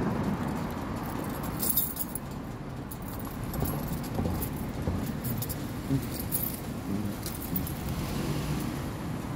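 Low, uneven rumble of a motorcycle on the move, with light jingling clicks now and then.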